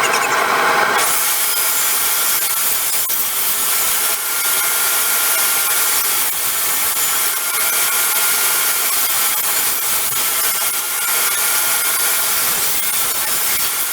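Electric power tool working old barn board. A humming motor note gives way about a second in to a steady hiss of the tool on the wood, running unbroken.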